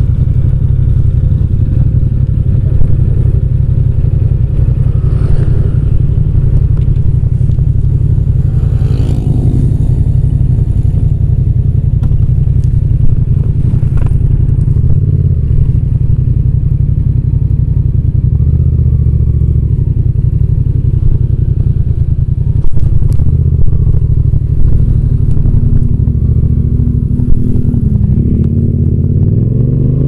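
Yamaha MT-07 parallel-twin engine running steadily at a standstill, then revving up with a rising pitch near the end as the bike pulls away.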